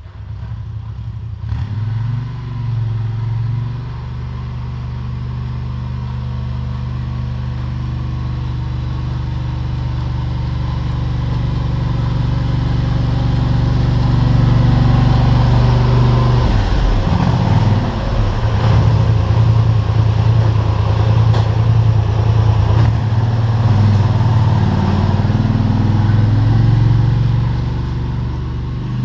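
ATV engine running while the four-wheeler plows snow with a front blade. It grows louder as the machine comes close, and the revs rise and fall for several seconds past the middle.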